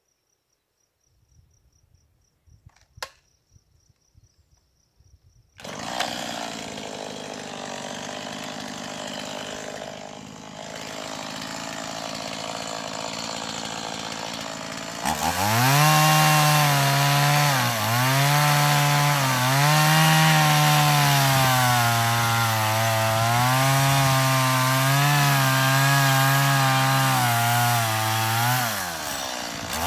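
Husqvarna 390 XP two-stroke chainsaw starting up about six seconds in and running steadily. About fifteen seconds in it goes to full throttle and cuts into the wood, its pitch dipping and recovering again and again under load. It sags briefly near the end.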